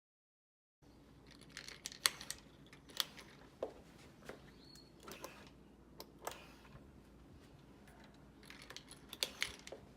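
Scattered light clicks and taps, like small hard objects being handled, over faint room tone; the sound starts abruptly about a second in.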